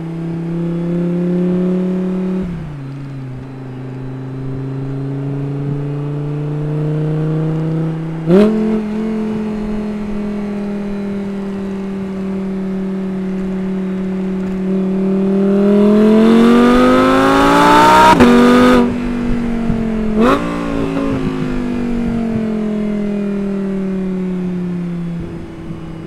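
Audi R8's V10 engine on its stock exhaust at light throttle. The pitch drops at an upshift about two and a half seconds in. About eight seconds in, a downshift blip jumps the revs up with a sharp crack. Then it pulls steadily with the revs climbing to the loudest stretch, is cut by a sudden upshift about eighteen seconds in, and gives another blipped downshift with a crack about twenty seconds in before the revs ease down.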